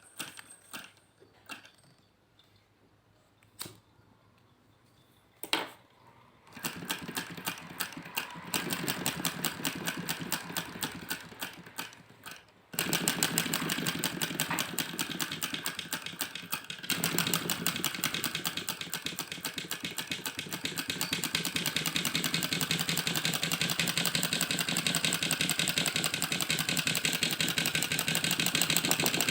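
Homemade flame-licker (vacuum) engine: a few scattered clicks and knocks, then about six seconds in it starts running with a fast, even ticking. The ticking fades for a moment, picks up louder a second later and runs steadily, growing a little louder again partway through.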